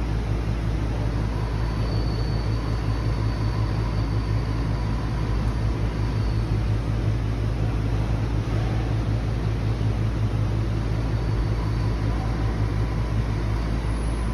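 Steady low mechanical hum of factory machinery, with no change in level, and a faint thin whine above it.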